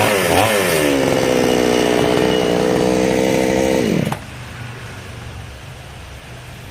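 Two-stroke chainsaw engine blipped up and down a few times, then held at high revs for about three seconds, then dropping back sharply about four seconds in to a much quieter low running.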